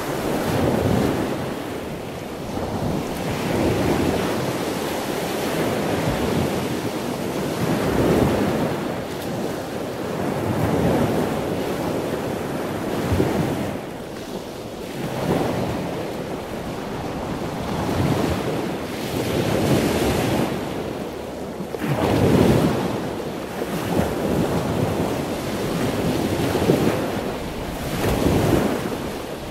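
Wind buffeting the microphone of a camera riding along a road, a loud rushing noise that swells and fades in gusts every couple of seconds.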